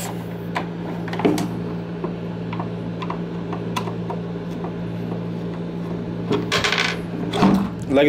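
Plastic mesh grill being worked off a vacuum cleaner's motor housing and set down on a wooden table: scattered small clicks and plastic rattles, then a louder burst of clatter near the end. A steady low hum runs underneath.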